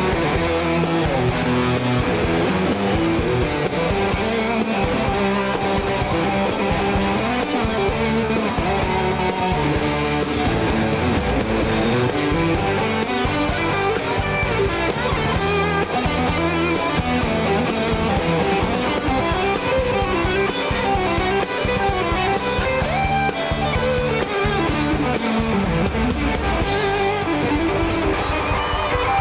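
Rock band music with electric guitar to the fore, playing loud and without a break.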